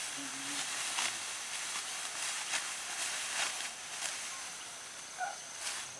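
Rice stalks being cut by hand with sickles: short crisp rustling strokes at irregular intervals, over a steady rustling hiss.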